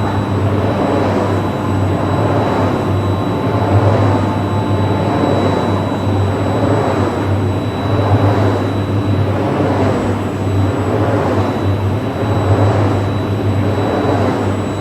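Wind turbine running: a steady low hum under a whooshing noise that swells and fades in a slow, regular rhythm, with a faint steady high tone above.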